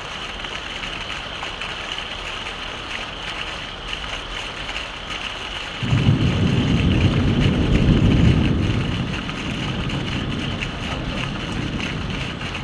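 Steady heavy rain, with a roll of thunder that breaks in suddenly about halfway through, rumbles for a few seconds and then fades back under the rain.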